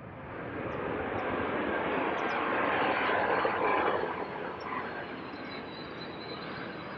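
Passenger plane cabin noise: a steady rush of jet engines and airflow that swells for a few seconds, then eases back to an even level.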